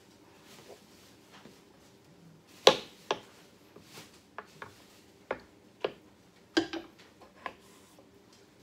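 Sharp hard wooden clacks and knocks, about eight in all and irregularly spaced, the loudest about three seconds in, as small wooden boxes and a wooden stick are handled and knocked together.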